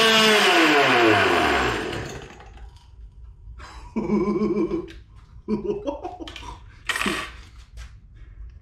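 Small two-stroke Poulan Pro leaf-blower engine, running on nitromethane RC car fuel, winding down from high revs: its pitch falls steadily and it dies away within about two seconds. A few short, uneven bursts of sound follow.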